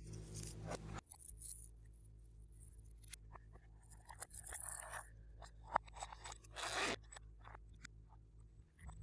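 Glossy slime being worked by hand: irregular sticky scraping and crackling noises, some short and some lasting up to a second, over a low steady hum.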